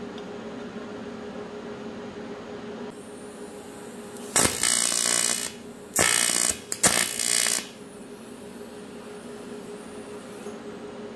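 TIG welding arc on aluminum, struck three times in loud short bursts of about a second each, tacking a crack in an aluminum bracket. A steady hum runs underneath between the bursts.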